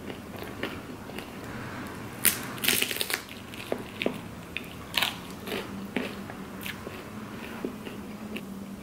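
Close-up crunching of a tortilla chip topped with meat being bitten and chewed: a quick cluster of crisp crunches two to three seconds in, then single crunches spaced out as the chewing goes on.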